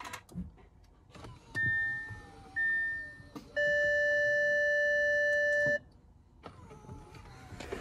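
Car's electronic warning chime from the dash: two short beeps about a second apart, then one long steady tone of about two seconds. A faint falling whine runs underneath.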